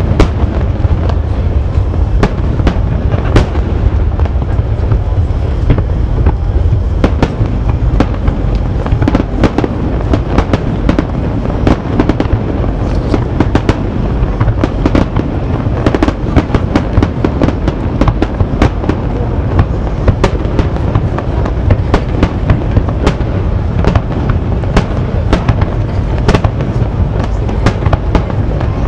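Aerial firework shells bursting in rapid succession: a dense, continuous barrage of sharp bangs and crackles over a steady low rumble.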